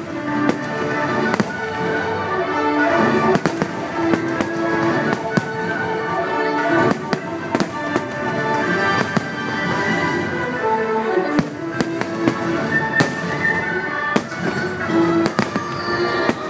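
Aerial fireworks shells bursting, many bangs in quick succession, over the fireworks show's music soundtrack.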